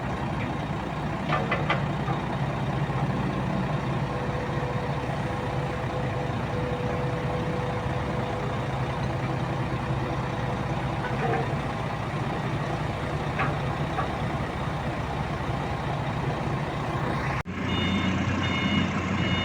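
Heavy diesel machinery running with a steady low drone. Near the end, after a sudden break, a different engine sound comes in with a repeating high beep, like a travel or reversing alarm.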